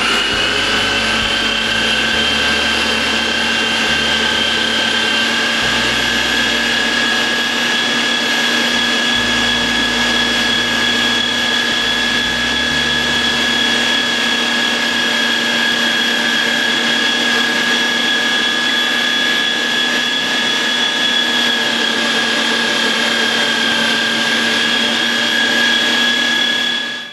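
Gourmia GMG7500 electric meat grinder motor running steadily with a constant whine, having just spun up, and cutting off near the end.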